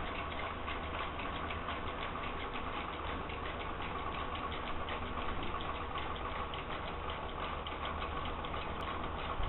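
Bathroom exhaust fan motor running steadily and driving a whirligig mechanism, which clicks rapidly and evenly over the fan's hum.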